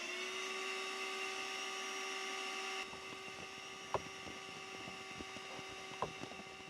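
Small electric motor spinning up, its whine rising in pitch and then holding steady. Two sharp clicks in the second half.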